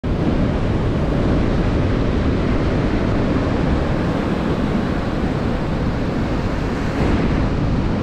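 Rough sea surf breaking and washing up the beach in a steady rush, with wind buffeting the microphone.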